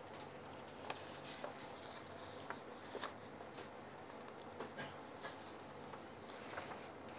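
Faint rustling and small scattered clicks of paper sheets being handled, over a low steady hum.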